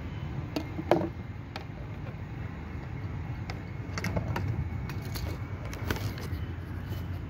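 A laptop's screen frame and hinge being handled: scattered clicks and light knocks, about ten in all, the loudest about a second in, over a steady low rumble.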